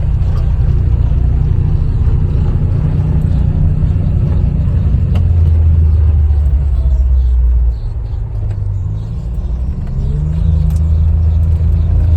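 A motor vehicle running, a steady low rumble that eases off about eight seconds in and builds again near ten seconds.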